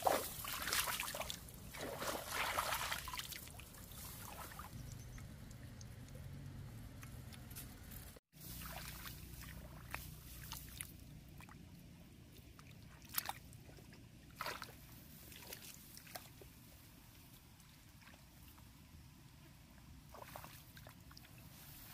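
Hands sloshing and splashing in shallow muddy paddy water while groping for fish, busiest in the first few seconds, then a few scattered splashes.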